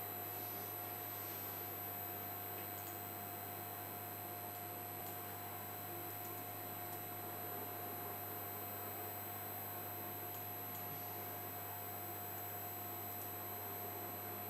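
Steady electrical hum with a constant mid-pitched tone and faint high-pitched whine, unchanging throughout.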